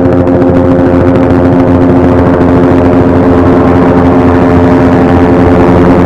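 Helicopter in flight: a loud, steady engine drone with a fast, even rotor chop.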